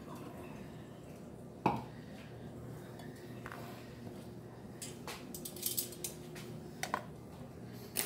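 Metal serving utensils knocking and clinking against a bowl of shredded chicken: one sharp knock about a second and a half in, then a few lighter clicks later on, over a faint steady hum.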